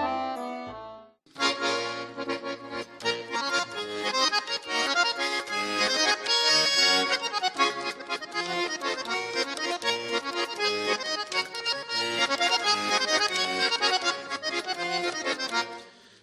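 Accordion playing a lively folk tune: a held chord fades out in the first second, then after a short break a fast run of melody over chords, which dies away just before the end.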